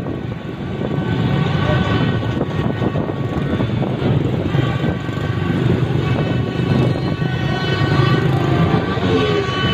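Motorbike and scooter engines running in a dense moving convoy, with wind rushing over the microphone. From about four and a half seconds in, horns sound in long, steady blasts over the traffic.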